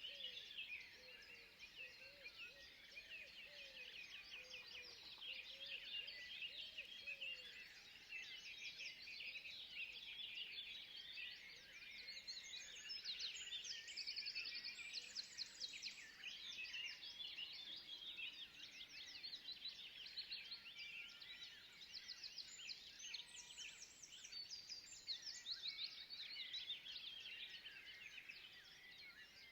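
A dense chorus of many small forest birds chirping and twittering in rapid, overlapping high calls, with a few fainter, lower calls in the first several seconds.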